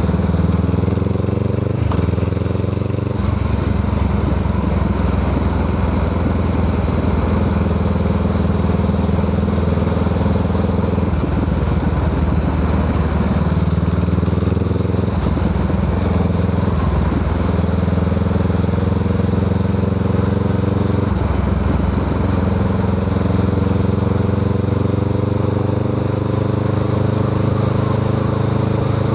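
Honda Rebel 500's parallel-twin engine running through an aftermarket Musarri exhaust muffler while riding. The exhaust note climbs in pitch and falls back several times as the revs rise and drop, with steady stretches in between.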